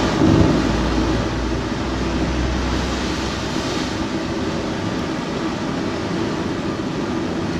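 Homemade propane forge burner made from 9 mm copper pipe, fed straight from a BBQ gas hose with no regulator, burning with a steady rushing hiss of gas and flame. There is a low rumble under it for the first few seconds, which then eases.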